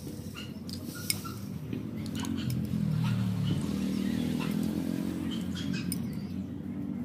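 River snails grilling in their shells over charcoal, their juices and the spooned-in chili sauce sizzling with small squeaks, pops and clicks. A low hum swells in the middle and fades toward the end.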